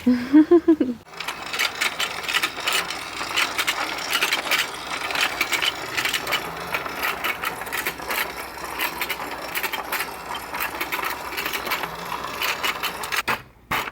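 Rapid, dense clicking and rattling of a small mechanism, starting about a second in and stopping abruptly near the end.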